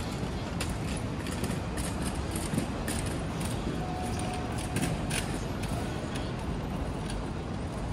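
City street ambience: a steady rumble of traffic, with a run of sharp taps and clicks through the first five seconds and a brief faint tone about four seconds in.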